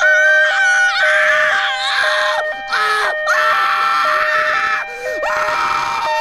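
A person screaming in panic: several long, drawn-out screams with short breaks. Under them a hi-lo siren switches between two notes about twice a second.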